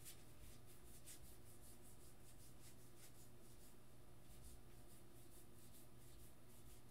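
Faint, soft rustling of a stack of trading cards being flipped through by hand, the cards sliding and ticking against one another, over a low steady room hum.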